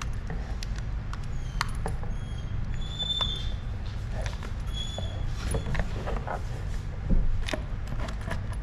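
Light clicks, taps and rustles of a small dash cam unit and its packaging being handled, over a steady low rumble, with a few short high chirps.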